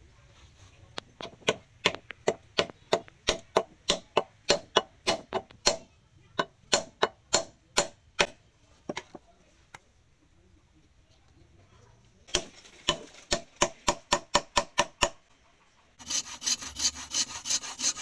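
Quick, light hammer blows driving a wooden wedge into the top of a wooden axe handle seated in a forged steel axe head, about four blows a second in two runs with a pause between. Near the end, a handsaw cuts through the protruding wood in rapid strokes.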